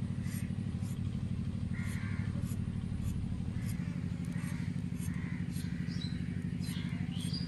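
A motor runs steadily with a low, rapidly pulsing drone. A few bird calls sound faintly over it, with higher chirps near the end.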